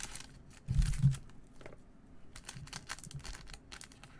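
Clear plastic card holder and sleeve being handled: light crinkling and scattered small clicks, with a short low thump about a second in.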